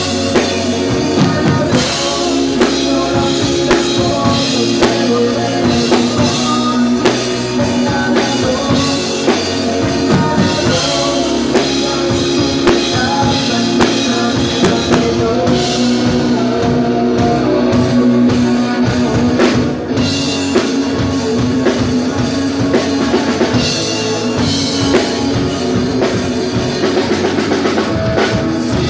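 Amplified rock band playing live, with the drum kit and bass drum prominent among the instruments.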